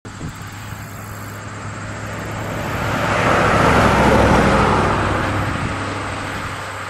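A 1957 Mercury Monterey, fitted with a 1968 Lincoln 460 cubic-inch V8, driving past: a steady low engine hum with tyre and road noise that swells as the car approaches, is loudest about four seconds in, then fades as it moves away.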